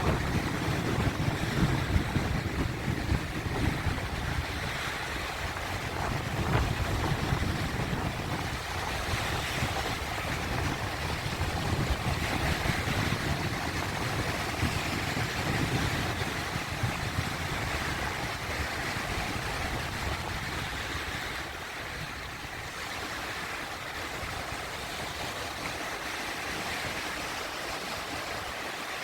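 Sea waves surging and washing in, a continuous rush of surf that is louder with a deeper rumble in the first several seconds and eases to a softer wash toward the end.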